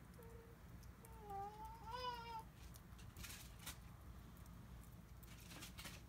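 A cat meowing three times in short, faint mews that bend up and down in pitch, the third the longest and loudest.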